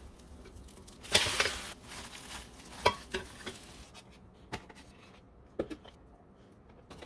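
Jeon frying in oil in a pan: a short burst of sizzling about a second in, then several sharp clicks of a utensil against the pan.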